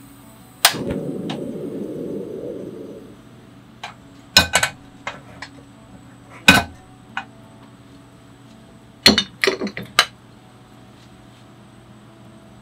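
A sharp click followed by about two seconds of rushing noise, then several loud metal knocks and clinks as an aluminium frying pan is set down and handled on the grates of a portable gas cassette stove, with a quick cluster of clinks near the end.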